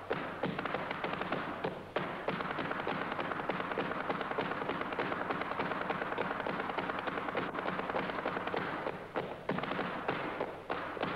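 Flamenco footwork (zapateado): the dancer's heeled shoes beating the stage floor in a very rapid stream of sharp strikes, running together into one unbroken roll from about two seconds in and breaking back into separate stamps near the end.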